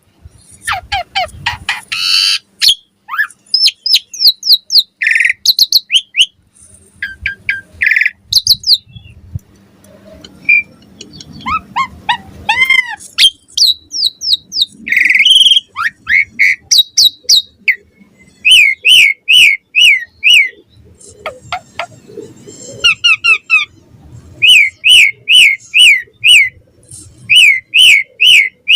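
Asian pied starling singing a long, varied song of whistles, chirps and harsh squawking notes, with runs of quick, repeated falling whistles in the second half.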